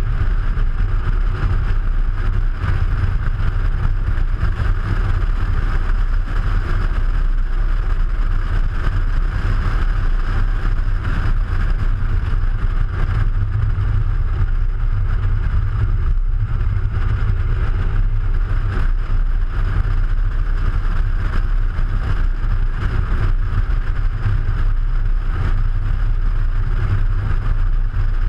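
Audi A3 driving along at a steady speed: constant low wind rumble and tyre noise on asphalt, picked up by a camera mounted on the outside of the car beside the front wheel.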